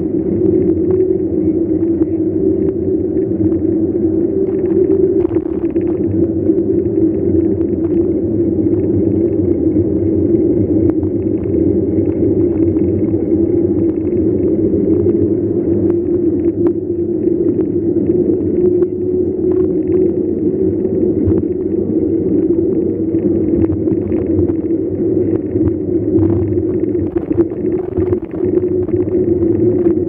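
Steady low rumble of wind on the microphone and knobby tyres rolling on asphalt from a mountain bike, heard from a handlebar-mounted camera, with a steady low hum through it.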